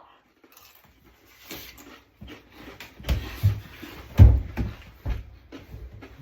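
Irregular crunching of a spicy tortilla chip being chewed, mixed with heavier knocks, the loudest about four seconds in.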